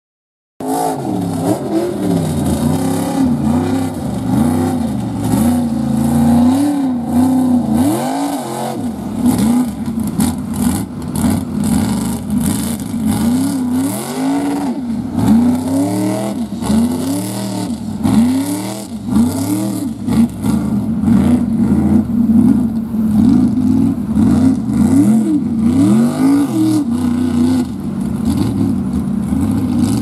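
High-horsepower engine of a lifted mud-bog Jeep revved hard and let off again and again, about once a second, as the big tyres churn through the mud.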